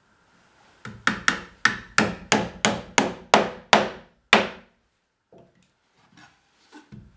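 Claw hammer driving a nail into a wooden nesting box. A light starting tap, then about ten firm blows roughly three a second, each ringing briefly, and one last blow after a short pause that finishes the last nail. A few soft knocks follow as the box is handled.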